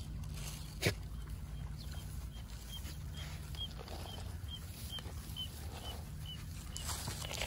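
Dogs sniffing and pushing through tall grass, with a rustle of grass near the end and a sharp click about a second in. A short high chirp repeats evenly about twice a second from a bird in the background.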